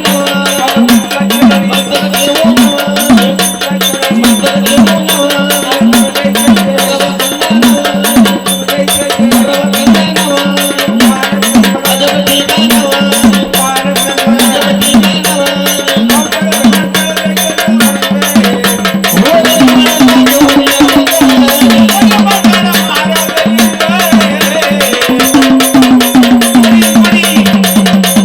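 Indian folk music: a steady held drone with a hand drum beating a regular rhythm of pitch-bending bass strokes, about two a second, and a sliding melodic line coming in twice in the second half.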